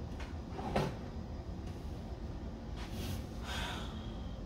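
A kitchen cabinet door knocking shut about a second in, followed by faint handling and rustling sounds.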